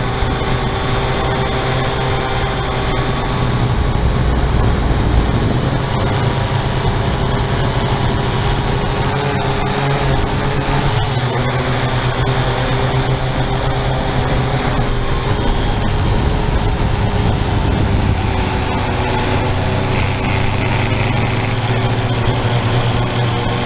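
Syma X8-C quadcopter's motors and propellers whirring steadily in flight, picked up close by the 808 keychain camera mounted on the drone, with several held tones over a hiss.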